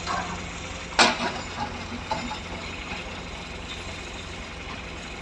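Excavator engine running steadily while broken rock clanks against steel, with one loud clank about a second in and a few lighter knocks after it.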